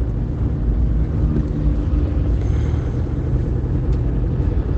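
A steady low rumble with no speech, of the kind made by nearby engine traffic or machinery.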